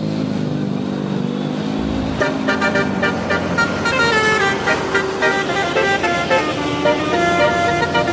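A bus's telolet horn playing a quick multi-note tune that jumps from pitch to pitch, starting about two seconds in, over the low running of the bus engine.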